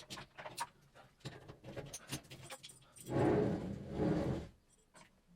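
Light metallic clicks and clinks, then a loud breathy sound lasting about a second and a half, starting about three seconds in.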